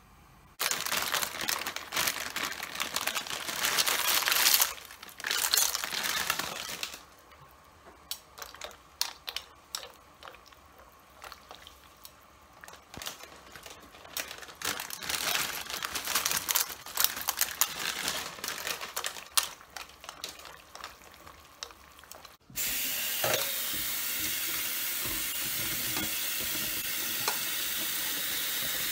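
Loud bursts of sizzling noise, then a long stretch of softer crackling as bowtie pasta cooks in a pan of water. About three quarters of the way through, a kitchen tap is suddenly turned on and runs steadily onto the drained pasta in a plastic colander.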